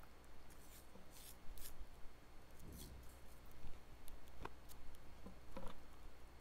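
Masking tape being pulled off the roll and torn into short pieces: several brief, faint rips.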